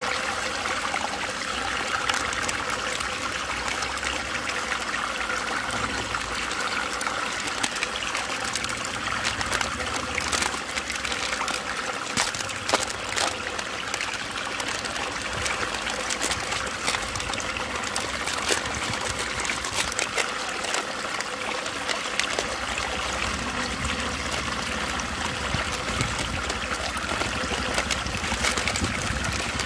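Water swirling steadily in a whirlpool vortex, with scattered short clicks and crackles throughout.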